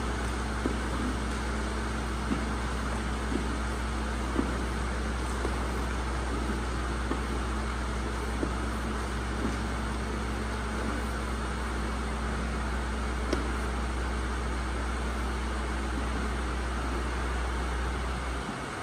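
Steady low mechanical hum that cuts off just before the end, with faint scraping and light knocks of a long-handled manure scraper pushed along a concrete barn alley.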